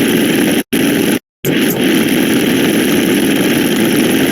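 Loud, dense buzzing wash of many overlapping digital sound effects, the blurred sound of a very fast binary counting sequence. It drops to silence twice, briefly at about two-thirds of a second and for a moment at about a second and a quarter.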